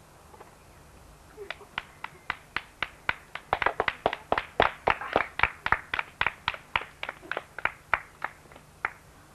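A few people clapping their hands: single claps at first, about three a second, thickening into denser overlapping claps in the middle, then thinning and stopping shortly before the end.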